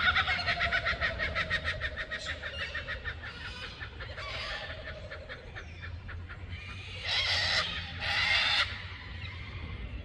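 Laughing kookaburra calling: a rapid run of chuckling notes, about eight a second, that dies away over the first four seconds. Two loud, harsh calls about a second apart follow near the end.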